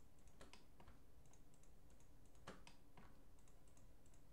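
Faint, irregular clicks of a computer mouse and keyboard, a few at a time, over a low steady hum.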